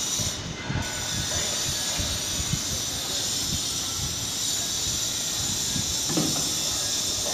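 Telcoma-motorised telescopic sliding gate moving along its steel track under the motor's drive, its wheels and panels making a steady rolling, hissing noise with irregular low knocks. A brief, lower-pitched sound comes about six seconds in.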